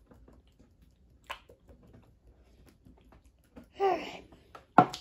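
Faint ticks and light knocks of a hot sauce bottle being held upside down and shaken to get the sauce out. A short vocal sound from the man comes near the end, followed by a sharp click.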